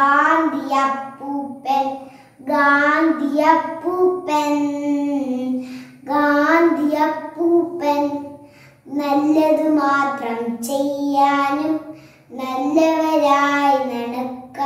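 A young girl singing unaccompanied, in phrases of a few seconds with short pauses for breath between them.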